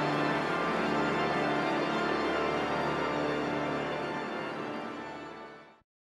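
Pipe organ playing many sustained notes together, fading out near the end and then stopping abruptly.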